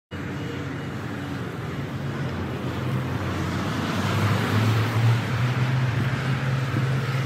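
Steady outdoor background noise, a low rumble with a hiss over it, growing somewhat louder about halfway through.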